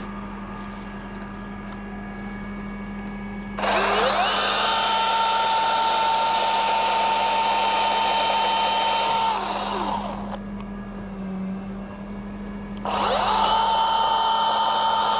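Milwaukee battery-powered top-handle chainsaw making the back cut through a trunk section. Its motor whine rises as it spins up, holds a steady pitch while cutting, winds down for a few seconds, then spins up again and runs on.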